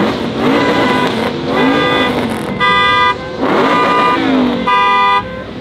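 Car alarm going off, cycling between short, loud horn-like blasts of one steady tone about a second apart and stretches of wavering, up-and-down sweeping tones.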